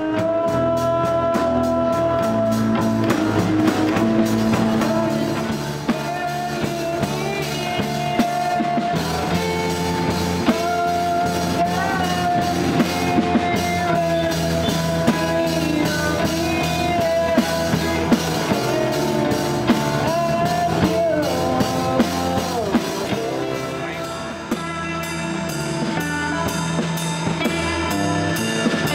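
Live acoustic band playing: two acoustic guitars, a drum kit with cymbals keeping a steady beat, and a voice singing a held, wavering melody.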